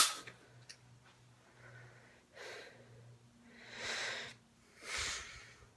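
A person breathing out in three soft, breathy puffs, about a second apart, starting about two and a half seconds in.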